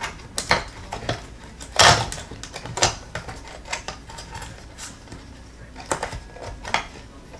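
Hard plastic clicks and knocks as a part is slid and pressed into the case of an Extech 411 multimeter during reassembly, the loudest knock a little under two seconds in.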